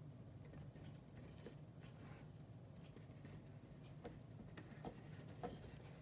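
Near silence: a faint steady low hum with scattered soft clicks and ticks, a few slightly louder ones near the end.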